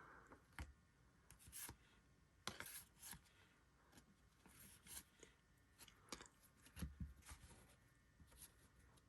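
Faint rustling and sliding of baseball trading cards being handled and flipped through, with scattered soft scrapes and light clicks.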